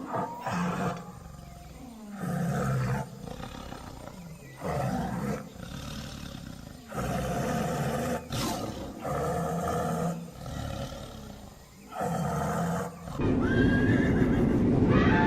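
Tiger roars played as the sound of a tiger puppet: about seven roars of a second or so each, with short gaps between. Near the end a louder, steadier rumbling sound takes over.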